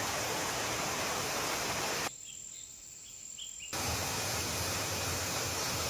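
Steady rushing hiss of a mountain stream's running water. About two seconds in it drops abruptly to a quieter stretch of about a second and a half, with a few faint short chirps, then returns just as suddenly.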